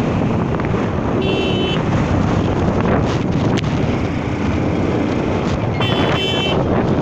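Wind buffeting the microphone over the Hero Ignitor motorcycle's single-cylinder engine running while the bike is ridden at about 35–48 km/h. Two brief high-pitched tones sound, about a second in and again near the end.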